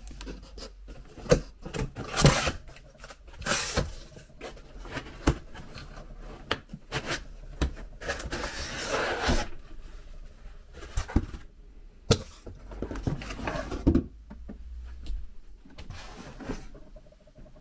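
Cardboard box being opened and a boxed portable power station unpacked: cardboard and packaging rustling and scraping, with scattered knocks and clicks.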